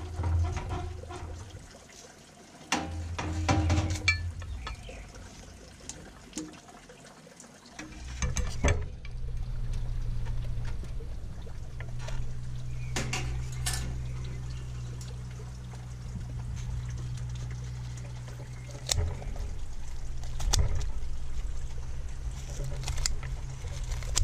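Handling noise as a roast chicken comes off a rotisserie spit: a few sharp clinks of the metal spit and tongs against the dish, over a steady low hum.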